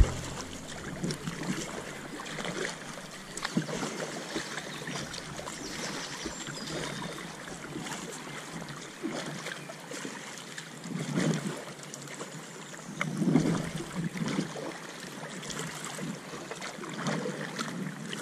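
Double-bladed kayak paddle dipping and splashing in calm river water, stroke after stroke, with the water lapping around an inflatable kayak; a few strokes come through louder, about 11, 13 and 17 seconds in.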